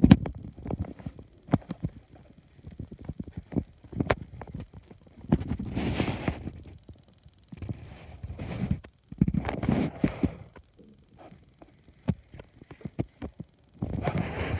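Handling noise on the microphone of a handheld camera: irregular bursts of rubbing and rustling with low rumbles and scattered sharp clicks and knocks.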